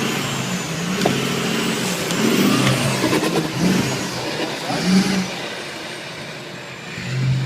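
An off-road 4x4's engine revving, its pitch rising and falling.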